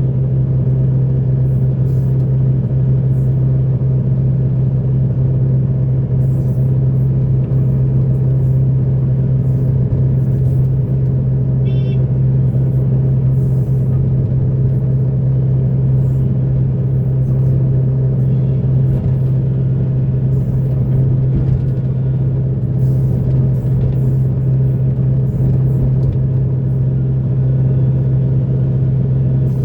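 Heavy diesel engine of earthmoving machinery running at a steady working speed, a constant low drone. A brief high-pitched chirp comes about twelve seconds in.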